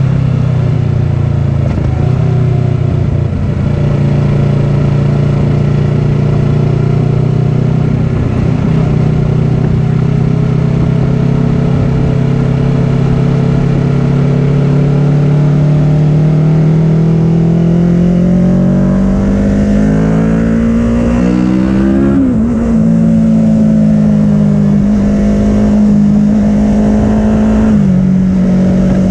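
Kawasaki Ninja 650's parallel-twin engine through an Arrow full-system exhaust, heard from on the bike with wind noise underneath. The pitch sinks slowly at first, then the engine revs up steadily for several seconds and drops sharply on an upshift about two-thirds of the way in. It then holds a steady pitch, with another short dip near the end.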